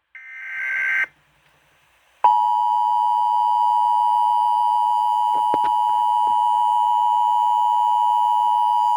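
Emergency Alert System broadcast tones for a severe thunderstorm warning. About a second of warbling digital data tones (the end of the SAME header) is followed, after a short gap, by the steady two-tone EAS attention signal, which holds without a break. A few faint clicks come a little past the middle.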